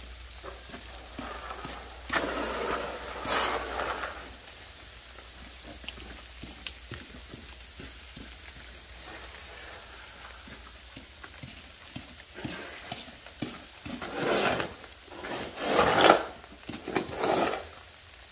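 Snow shovels scraping ice and slush off a paved driveway in several long strokes, bunched near the start and again in the last few seconds, the loudest near the end. Under them runs a steady fine patter of ice pellets falling.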